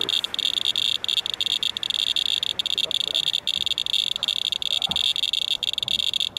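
Radalert Inspector Geiger counter clicking so fast that its counts blur into a dense, steady high chirping, broken by brief irregular gaps. It is counting a paper-towel wipe from the rain-soaked truck at about 0.97 mR/hr, which the owner reads as nearly 100 times background.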